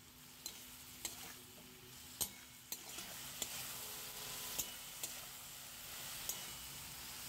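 Metal spatula stirring and scraping chopped vegetables and spices in an aluminium kadai, with a faint steady sizzle of frying and scattered light clicks of the spatula against the pan.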